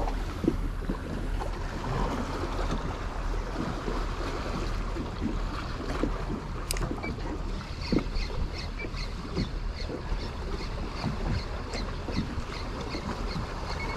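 Wind buffeting the microphone over open sea, with small waves slapping against a kayak hull in irregular knocks. About halfway through, a run of faint, even ticks starts, roughly three a second.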